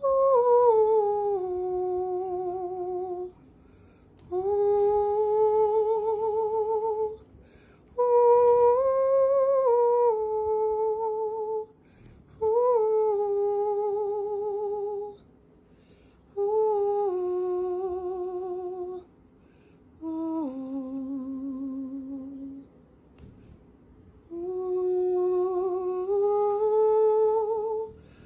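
A woman humming a slow, wordless tune with vibrato in seven long held phrases, with short breaks for breath between them.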